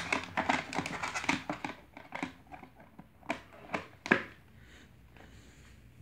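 Plastic battery cover in the base of a box fan being handled: a quick run of clicks and rattles, then four single sharp clicks spread over the next couple of seconds.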